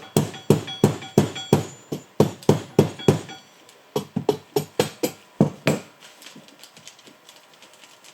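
Repeated hammer blows on the metal housing of a BV43 turbocharger, about two or three a second for some six seconds, each with a short metallic ring, while the core is being worked apart from the housing. Lighter small metal clicks follow near the end.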